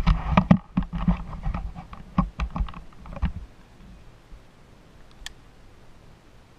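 Rapid clattering knocks and clicks of the climber's rigging, rope and hardware as a cut pine top is sent out on a zip line, lasting about three seconds. One lone click follows a couple of seconds later.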